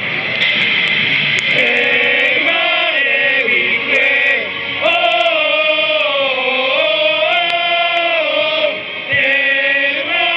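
A stadium crowd of football supporters singing a chant in unison, with long held notes that rise and fall. The chant comes in a little over a second in, out of a wash of crowd noise and music.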